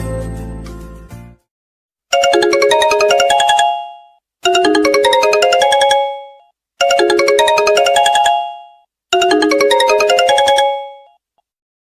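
A mobile phone ringtone: a short, bright melodic phrase of quick notes, played four times about every two and a half seconds, each ending in a short fade. The tail of the previous ringtone dies away in the first second.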